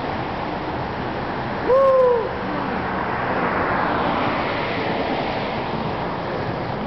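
Steady hiss of road traffic from cars passing on a riverside road. About two seconds in, a single loud short pitched call rises and then falls in pitch, lasting about half a second.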